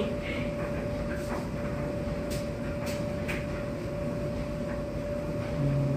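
Steady mechanical hum with one constant mid-pitched tone over a noisy rumble, with a few faint ticks scattered through and a brief low hum near the end.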